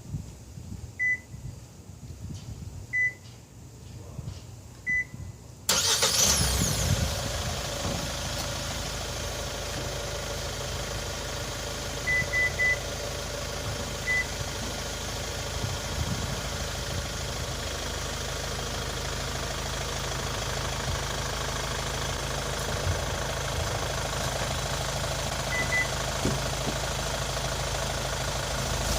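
Kia Sportage's engine remote-started: three short electronic beeps about two seconds apart, then a little under six seconds in the engine cranks, catches and settles into a steady idle. A few more short beeps sound over the idle.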